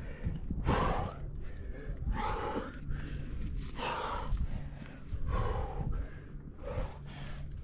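A rock climber breathing hard from exertion mid-route: about five loud, gasping breaths, roughly one every second and a half.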